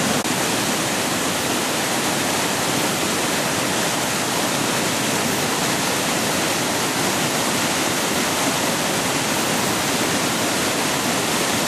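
Steady, even rush of storm floodwater, unchanging throughout.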